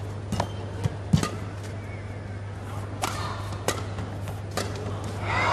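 Badminton rally: rackets striking the shuttlecock in sharp cracks, about five of them a second or so apart. Crowd noise swells near the end as the rally finishes.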